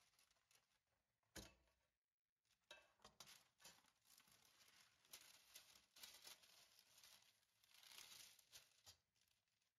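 Faint handling sounds: a single light knock of the metal springform pan about a second in, then baking paper rustling and crinkling as it is spread out and smoothed by hand.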